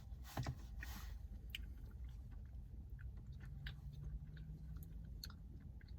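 Faint mouth sounds of someone eating ice cream: scattered small clicks and smacks.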